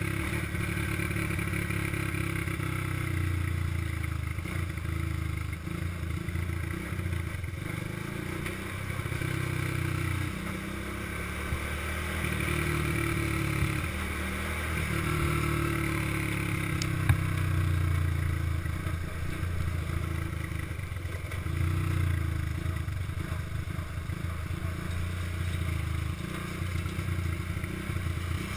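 Small single-cylinder ATV engine running under way on a dirt road, its pitch rising and falling with the throttle, over the clatter of the machine on the rough surface. A single sharp click about two-thirds of the way through.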